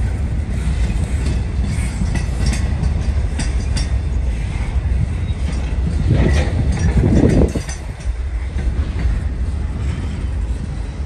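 Freight train of covered railcars rolling past, a steady low rumble with wheels clicking over the rail joints. A louder noise swells about six seconds in and cuts off suddenly a second and a half later.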